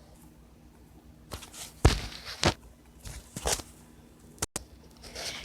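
A few scattered short knocks and thumps against low room tone.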